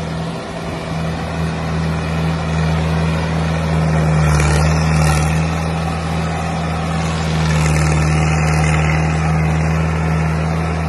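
Mahindra Arjun tractor's diesel engine running steadily under load while hauling a fully loaded trolley, growing louder about four seconds in and again near eight seconds.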